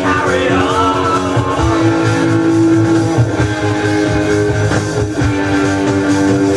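Hard rock played from a 1971 vinyl LP on a turntable: electric guitar and held notes, with a sung phrase near the start.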